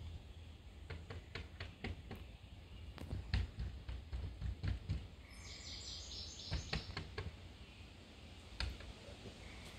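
Outdoor ambience: irregular light clicks and taps over a low rumble, with a brief high chirping sound about five seconds in.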